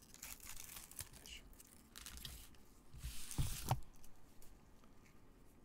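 Scissors snipping at a foil trading-card pack, with the wrapper crinkling and rustling in several short spells, the loudest about three seconds in.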